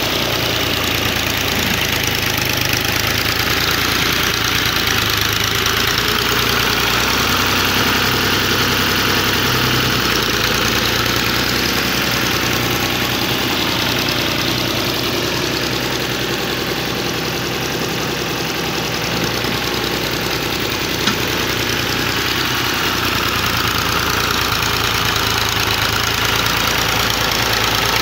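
Al-Ghazi Ghazi tractor's diesel engine running steadily under load as it pushes soil with a front dozer blade.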